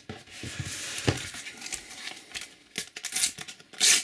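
Shiny foil sticker packet crinkling as it is handled, with a few light taps of stickers on a wooden table, then a loud crinkly tearing as the packet is ripped open near the end.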